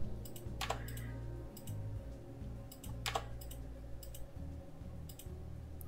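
Computer keyboard keystrokes and mouse clicks while files are renamed: about seven separate light taps at irregular intervals.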